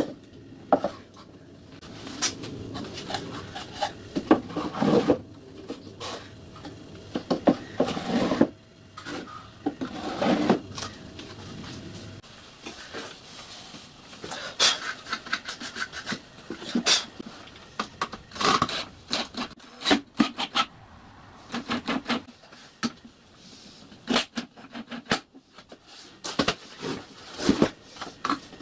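OSB boards being handled and fitted together into a box on a workbench: irregular wooden knocks, clatter and scraping of board against board.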